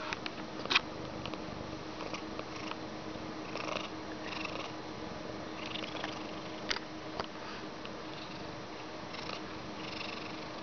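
Allergic Persian cat making steady soft nasal sounds, broken by a few short sharp sniffs as it works toward a sneeze. The loudest sniff comes about a second in.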